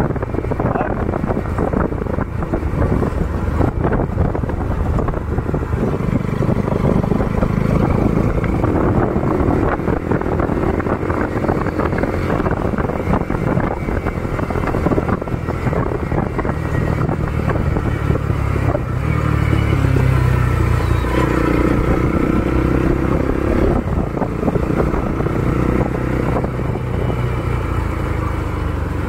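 Bajaj Pulsar NS200's single-cylinder engine running through an aftermarket custom exhaust on the move, with a deep, bassy note. Its pitch rises and falls several times with the throttle.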